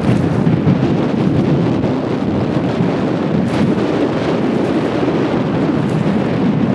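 Wind blowing across the camera microphone: a steady, loud, low rushing noise.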